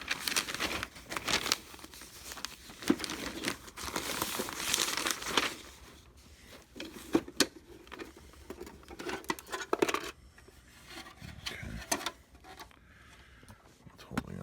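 Newspaper crinkling and rustling as it is handled, dense for the first half, then scattered rustles with a few sharp clicks.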